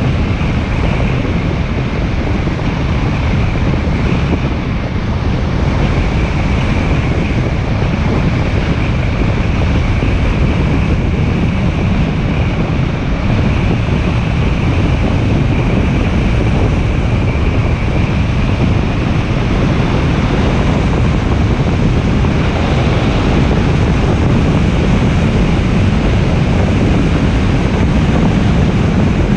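Steady, heavy wind noise on the microphone of a moving motorcycle, with the motorcycle's engine running underneath.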